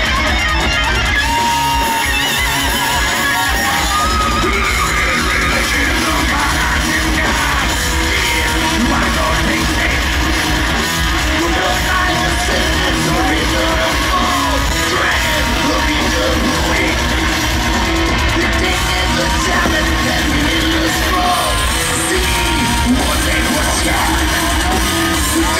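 Live thrash metal band playing at full volume: distorted electric guitars, bass and drums, with yelled vocals over the top, heard from among the crowd.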